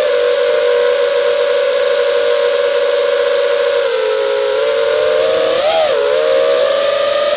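Brushless motors and propellers of a GEPRC Rocket Plus FPV quadcopter whining in flight, heard from its onboard camera, over a steady rushing hiss. The pitch drops about halfway through and briefly jumps up and back down near the end as the throttle changes.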